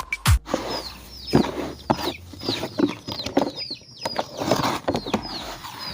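Chickens clucking, with many short high peeping calls that fall in pitch, repeating several times a second. A dance-music beat cuts off about half a second in.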